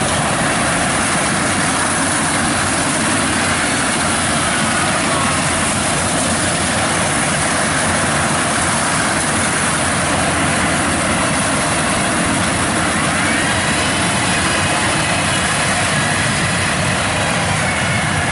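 Yanmar 82V rice combine harvester running at close range while it cuts and threshes rice, its diesel engine and machinery making a loud, steady drone.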